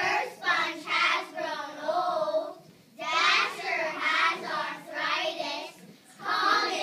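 A group of young children reciting a poem in unison in a sing-song chant, line by line, with a short pause between lines about three seconds in and again near the end.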